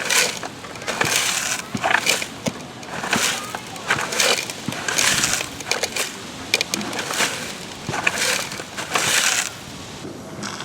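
Sand being scraped and scooped with a toy truck, in repeated short rasping strokes about once a second.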